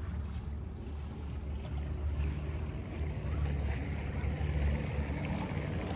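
Small outboard motor running steadily at low trolling speed, a low rumble with water noise over it.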